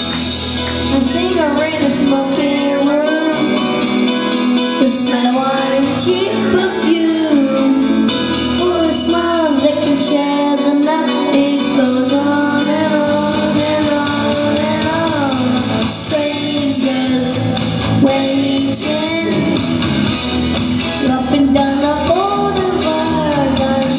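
A boy singing karaoke into a microphone over a pop-rock backing track, his voice amplified through the stage speakers.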